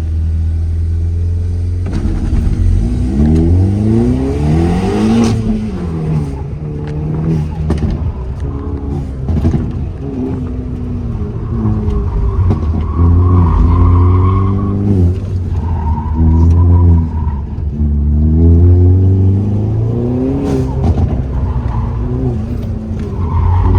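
A car engine revving hard, its pitch climbing and dropping back again and again as it is driven through the gears on a racetrack, over a steady low drone.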